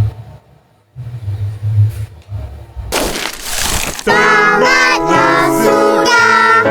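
Outro music: a low pulsing beat, a rushing swoosh about three seconds in, then from about four seconds a loud, busy melody with stacked notes.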